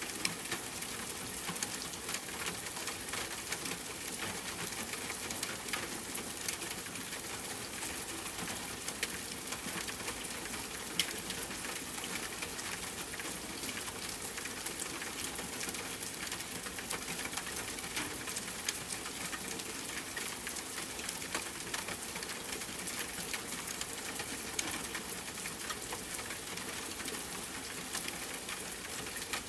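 Steady rain falling: an even hiss dotted with many separate drop ticks, with one louder drop about eleven seconds in.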